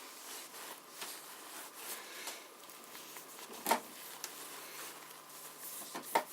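Faint rubbing of a soft cloth wiping oil off a White Peerless sewing machine head, with a sharp tap a little over halfway through and a smaller click near the end.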